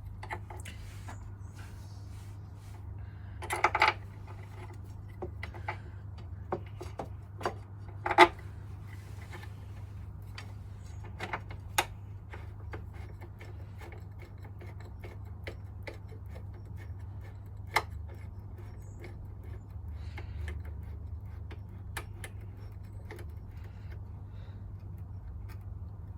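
Scattered clicks and metallic knocks of tools and parts being handled while fitting components back on a motorcycle's front wheel, with a short rattle about four seconds in and a louder clunk about eight seconds in, over a steady low hum.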